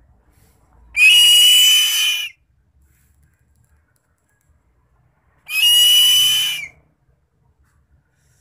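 Two long, high-pitched screams of a bird of prey, each just over a second, rising slightly at the start and then held steady, about four and a half seconds apart.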